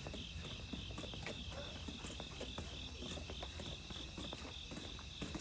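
Insect chirring in a steady pulsing rhythm, about four pulses a second, with faint scattered clicks underneath.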